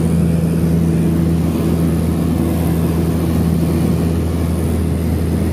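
Light aircraft's engine and propeller running steadily at takeoff power, heard inside the cabin as a loud, even drone.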